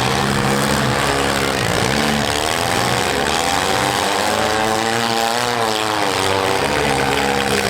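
Several compact-car engines revving up and down together, their pitches rising and falling over one another.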